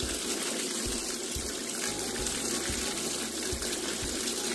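Tap water running steadily into a steel bowl while hands rub and rinse raw prawns in it.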